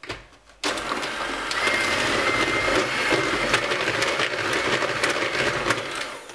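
Bosch electric hand mixer running, its whisk beaters churning margarine into a beaten egg-and-sugar mixture. It starts about half a second in, runs steadily with a faint high whine and occasional clicks, and stops near the end.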